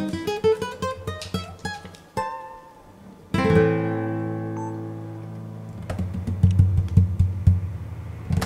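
Background acoustic guitar music: a run of rising plucked notes, a loud chord about a third of the way in that rings out, then quick strumming near the end.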